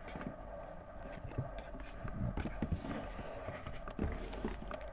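Faint handling of trading cards and packs: a few soft scattered taps and light rustles as cards are put down and the next pack is picked up.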